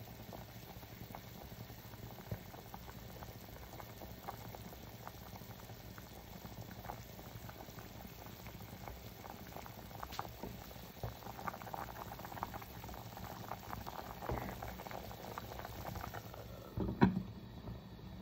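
A pot of pork and vegetable soup bubbling at the boil while a ladle dips in to skim off the foam. About a second before the end a glass pot lid is set on with a single knock.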